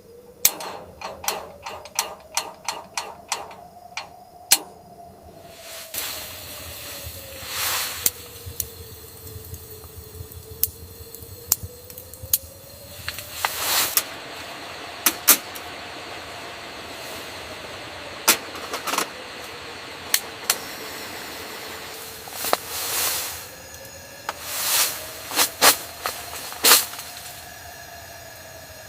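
Blizzard wind gusting in swells against a small tent, with a faint whistle-like tone that slowly rises and falls, and many sharp ticks and taps throughout.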